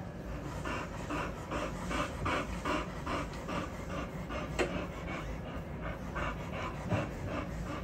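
American bully dam panting fast and evenly, about four breaths a second, in labour with more puppies still to come.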